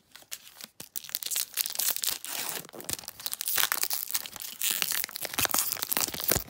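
Foil wrapper of a Kaldheim set booster pack being torn open and crinkled by hand: a dense, crackling run of sharp crinkles and tearing.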